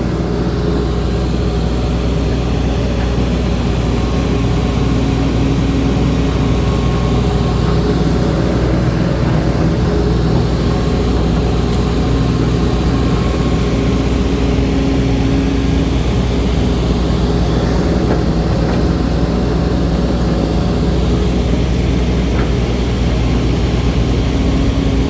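Excavator diesel engine and hydraulic pump running steadily without labouring, a sound the owner takes as a sign the system is in good order.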